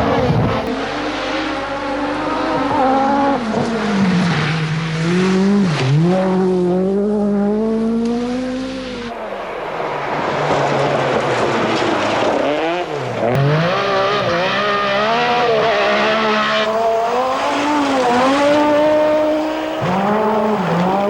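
Rally car engines at full throttle. The note climbs through the gears and drops sharply on lifts and shifts, across several short clips cut together.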